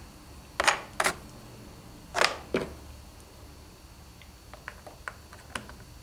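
Cast plaster rock pieces clicking and knocking as they are handled and tried against a plaster rock wall. Two sharp clicks come about a second in, another pair a second or so later, then a few faint ticks.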